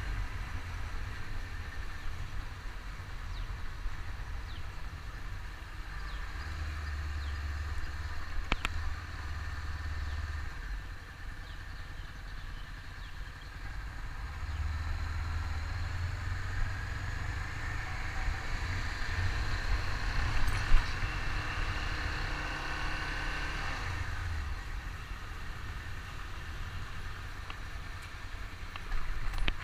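A Honda CBR500R's parallel-twin engine running as the motorcycle rides along, with wind rumbling on the microphone. The engine note climbs in pitch for a few seconds past the middle.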